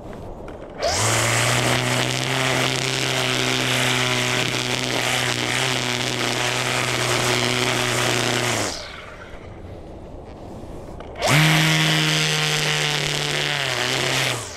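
String trimmer run at full speed: it winds up less than a second in and holds a steady high whine for about eight seconds. It winds down, then is run up again about three seconds later for another three seconds.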